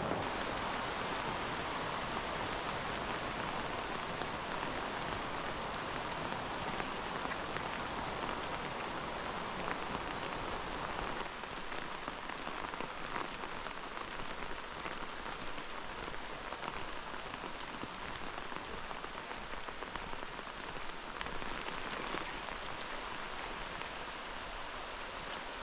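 Steady hiss of falling water, with no clear pattern. About eleven seconds in the deeper part of the sound drops away and the hiss carries on lighter.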